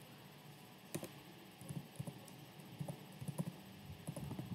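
Faint keystrokes on a computer keyboard: a string of short, irregular clicks as a word is typed, with a correction partway through.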